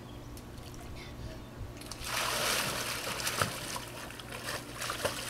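A splash of water about two seconds in: a short rush of noise lasting about a second, over a faint low hum.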